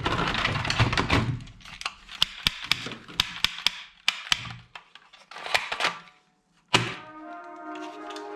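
Rustling handling noise with a series of sharp clicks and knocks, about eight in two seconds, then a single sharp knock followed by background music with held chords for the last second and a half.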